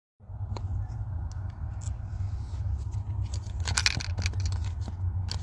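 Steady low rumble with scattered clicks and scraping sounds, busiest near the middle.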